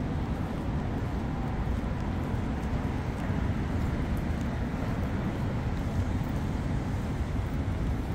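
Steady city street traffic noise, mostly low-pitched, with no single event standing out.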